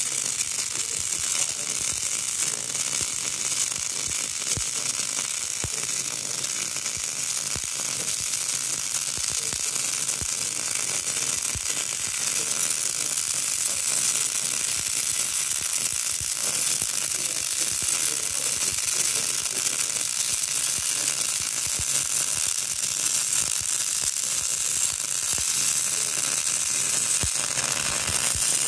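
MIG welding arc crackling and sizzling steadily as a bead is run on steel, a dense, even crackle without a break.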